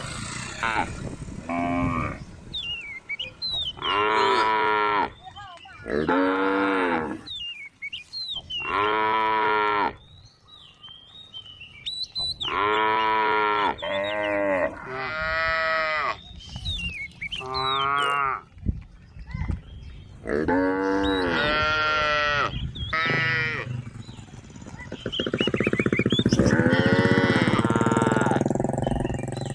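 Several cows mooing back and forth as a herd, with about a dozen drawn-out calls of roughly a second each, one after another with short pauses. Near the end a low rumble rises under the calls.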